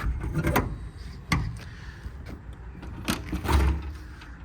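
Metal service-body compartment doors and drawers being handled: a series of clicks and clunks, with the heaviest thud about three and a half seconds in.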